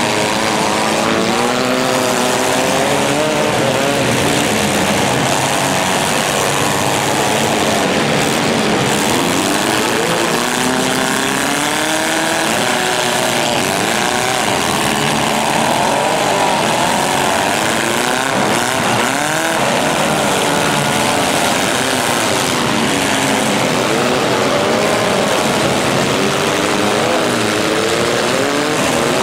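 Several demolition derby compact cars' engines revving hard at once, their pitches overlapping and rising and falling as the cars push and ram.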